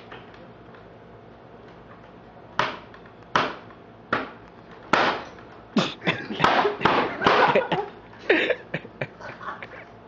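A hand in a padded glove striking a pine board laid across wooden blocks, hard thuds that do not break it. A few blows about a second apart, then a quicker flurry of hits, then a few more.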